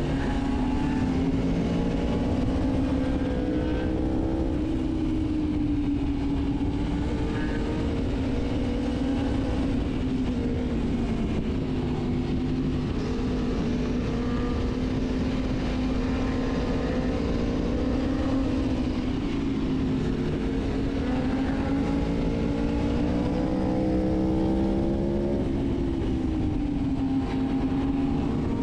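Aprilia Tuono V4 1100 Factory's V4 engine running under way, its pitch rising and falling smoothly with the throttle over a steady rushing noise.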